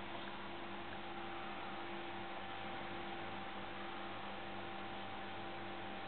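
RFT Smaragd reel-to-reel tape recorder playing a blank stretch of tape: steady tape hiss with a low hum.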